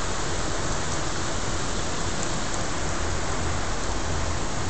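Steady noise of strong wind and heavy breaking surf driven by a hurricane's outer band, with wind rumbling on the microphone.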